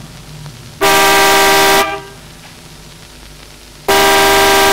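Truck horn blown from the cab in long steady blasts: one of about a second, then after a pause another that starts near the end and is held.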